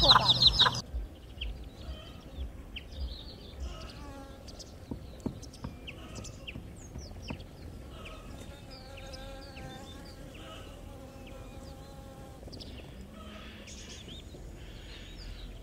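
Chicks peeping loudly, cut off abruptly within the first second. Then a quieter chicken yard follows, with scattered short chirps and a steady buzz lasting several seconds in the middle.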